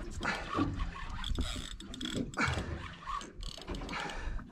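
Fishing reel being cranked against a hooked fish, its gears ratcheting in a steady run of fine clicks.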